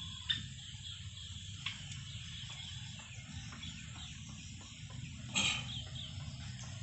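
Bird calling in short, high chirps, with one louder call about five and a half seconds in.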